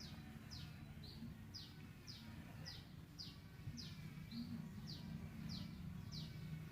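A bird chirping over and over, a short falling high note about twice a second with an occasional short flat note between, over a faint low steady hum.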